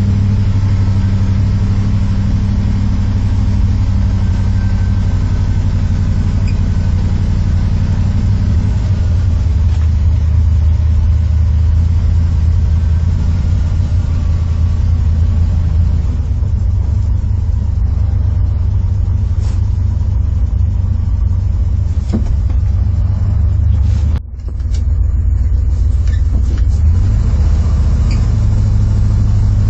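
Old Ford F-250 dually welding truck's engine running under way with a steady low rumble, heard from the cab while driving. The sound dips briefly about three-quarters of the way through.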